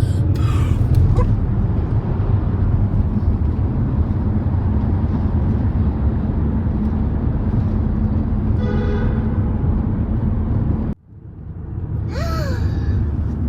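Steady low road rumble of tyres and engine heard from inside a car cabin while driving through a road tunnel. The rumble cuts out abruptly about eleven seconds in and quickly comes back, and a short voice sound follows near the end.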